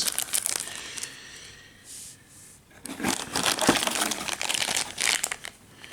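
Plastic packaging crinkling as it is handled, light at first, then a short lull, then dense crackling from about three seconds in.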